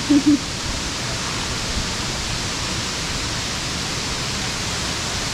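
Steady rush of falling water from a waterfall and creek.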